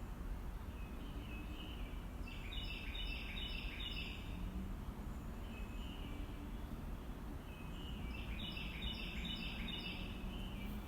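Songbird singing two phrases of rapid, repeated high chirps, one near the start and one near the end, over a steady low outdoor rumble.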